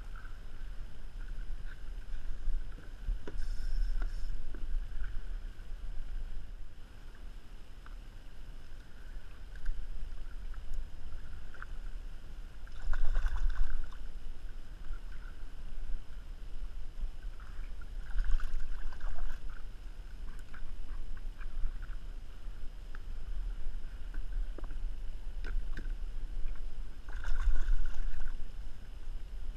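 Water sloshing around a plastic kayak with wind rumbling on the microphone, broken by three louder bursts of splashing as a hooked kahawai thrashes at the kayak's side.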